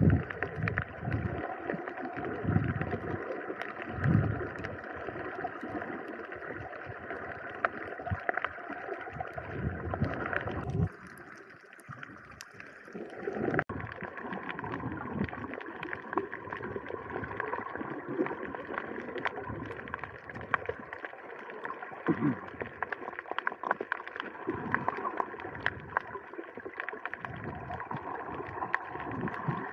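Water sloshing and gurgling around a snorkeler's camera, with many small crackling clicks and a faint steady hum. The sound drops away briefly about eleven seconds in, then returns with the hum a little higher.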